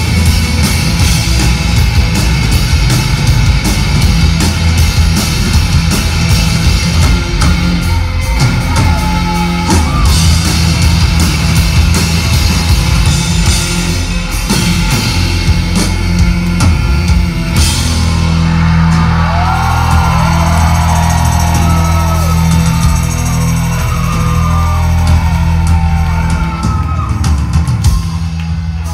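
Rock band playing live and loud: electric guitars over a drum kit.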